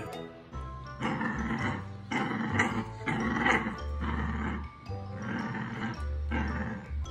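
A puppy growling in about six short, rough bursts over background music.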